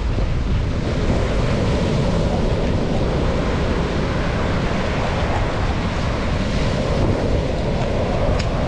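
Wind buffeting the microphone over the steady wash of surf on the shore.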